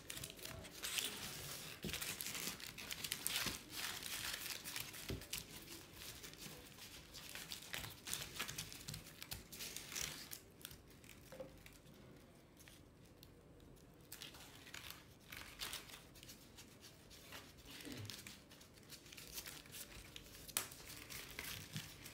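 Tissue paper crinkling and rustling as hands press and fold it down onto a canvas frame, in uneven bursts, with a quieter stretch about halfway through.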